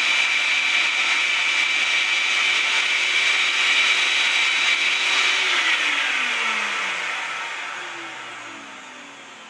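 Shop-Vac wet/dry vacuum running steadily with a high whine, drawing air through a vacuum-forming platen box. About five seconds in its motor spins down, the whine falling in pitch and fading away.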